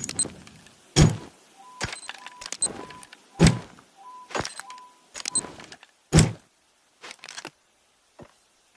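Remote-controlled pipe bomb sound effect: a run of sharp mechanical clicks, about one a second, with short high electronic beeps among them for the first few seconds, as the device is armed ahead of the detonation.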